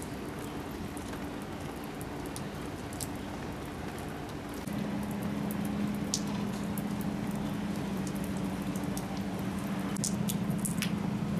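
Rain pattering on a wet street, with scattered drips. A steady low hum joins about five seconds in.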